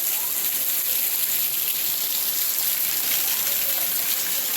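Steady rush of falling water from a waterfall: an even hiss with no breaks, strongest in the high end.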